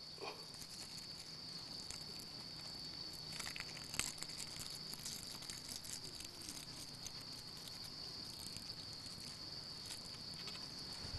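Quiet, steady high-pitched drone of insects, with a few faint rustles and small clicks as a nylon cord is tied around a bamboo ridge stick at the corner of a canvas tarp.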